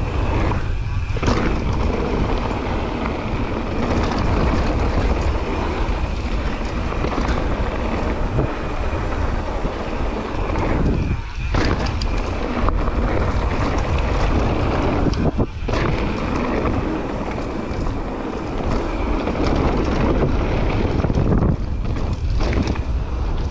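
Mountain bike riding fast down a dirt trail: tyres rolling over dirt and gravel under heavy wind rush on the camera microphone, with a few short knocks and rattles from the bike over bumps.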